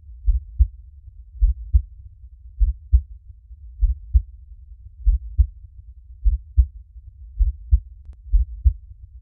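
A slow, steady heartbeat: deep double thumps in the lub-dub pattern, about one beat a second, just over fifty a minute.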